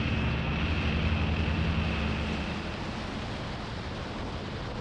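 Ford Raptor pickup driving, its engine running under a steady rush of tyre and wind noise. The engine note fades after about two seconds, leaving the steady rush.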